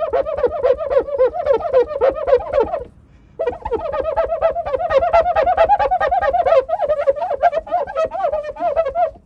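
Wet rag rubbing on a car window, the glass squeaking in quick back-and-forth strokes, about five squeaks a second, with a brief pause about three seconds in.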